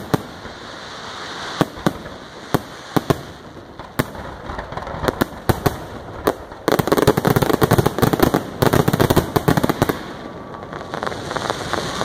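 Aerial fireworks shells bursting: separate sharp bangs with crackle, then about seven seconds in a dense, rapid barrage of reports for about three seconds, thinning out near the end.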